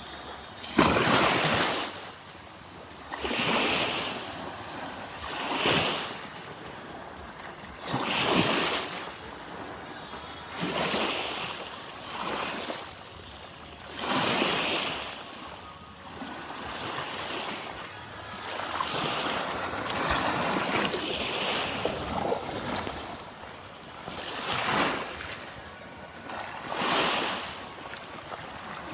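Small waves washing onto the shore one after another, each a rush of surf that swells and fades about every two to three seconds.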